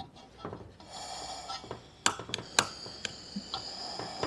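Gas hissing from a portable cartridge stove as its valve is opened, with several sharp igniter clicks from about two seconds in while the burner has not yet caught.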